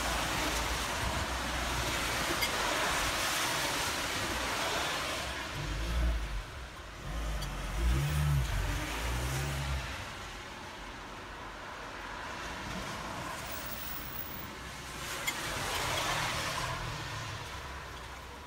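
Cars passing on a wet road, their tyres hissing on the wet tarmac: one fading away early on and another swelling past near the end, with wind buffeting the microphone in between.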